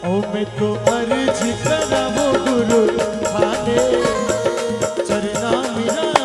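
Live Rajasthani devotional bhajan music: a male singer's voice and keyboard melody over a steady tabla rhythm.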